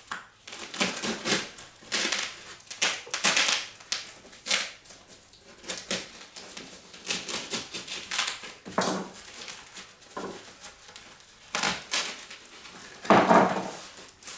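A securely wrapped cardboard delivery box being opened by hand: cardboard and packaging scraping, crackling and rustling in irregular bursts, with a louder burst near the end.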